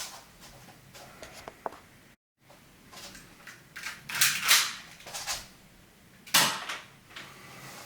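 Low-power airsoft pistol being handled and cocked with bound hands: a run of plastic-and-metal clicks, rattles and scrapes, with a cluster of louder strokes midway and one sharp snap about six and a half seconds in.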